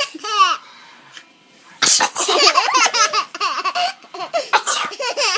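A little boy laughing: a short high squeal at the very start, then, after a pause of more than a second, a long run of choppy laughter in quick bursts to the end.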